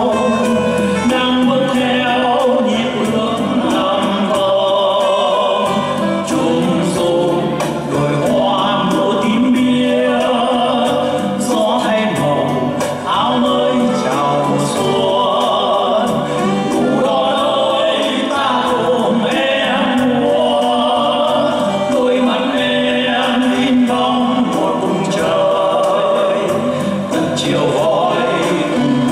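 A man singing a Vietnamese song solo into a microphone, with instrumental accompaniment.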